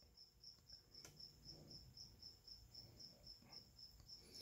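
Near silence with a faint cricket chirping steadily in the background, a short high chirp about four times a second. Faint handling noises and a small click about a second in come from the plastic model cab being turned in the hand.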